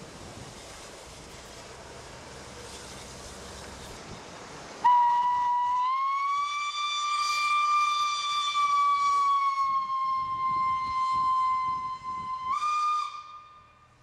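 Steam whistle of an LNER B1 steam locomotive blown in one long, loud blast of about eight seconds, starting about five seconds in. Its pitch rises a little, then eases down, and steps briefly higher just before it cuts off.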